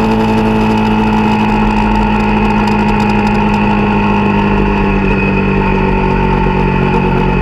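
Honda CRF250L's single-cylinder four-stroke engine running steadily while riding, heard from on the bike. Its note sinks slowly as the bike eases off and slows.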